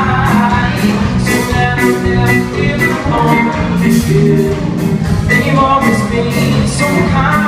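A live band playing folk-pop with a steady drum beat, guitars and a sung vocal line, recorded from the audience in a concert hall.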